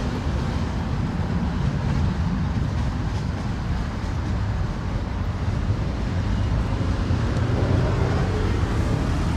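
2006 Mazda 6 engine idling steadily, a continuous low rumble.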